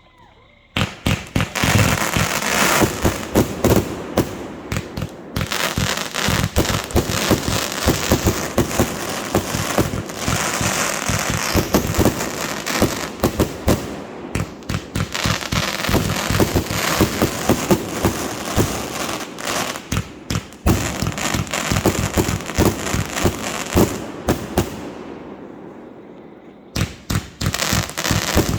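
Fireworks going off in a dense, rapid barrage of bangs and crackles, starting about a second in, dying down near the end and then starting up again.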